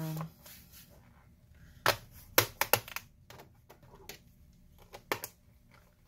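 Plastic clips of a Dell Inspiron 17R-5737 laptop's bottom access panel snapping into place as the panel is pressed down: sharp clicks, four close together about two seconds in and two more about five seconds in.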